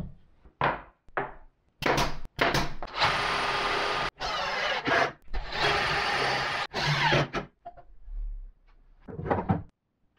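DeWalt cordless drill running as it bores into plywood, in two runs of about one and two seconds with a steady high whine. A few short wooden knocks come before, and a short burst near the end.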